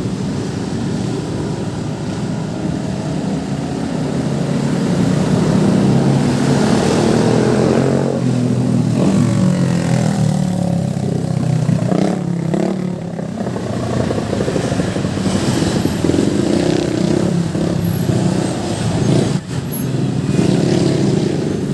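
Busy road traffic: the engines of cars, motorcycles and larger vehicles passing close by, their pitch rising and falling as they speed up and slow down.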